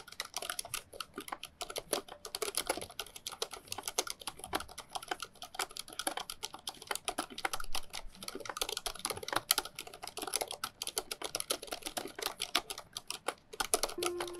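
Continuous fast typing on a Waycos Thinkway Toche RGB full-size mechanical keyboard with Cherry MX silent red switches and thick internal sound-dampening foam, many keystrokes a second.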